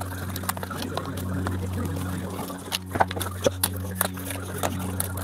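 Cordless oscillating multi-tool with a cold knife blade buzzing steadily as it cuts through the urethane glue holding a bonded panoramic roof glass, with scattered clicks and scrapes of the blade against the glass edge.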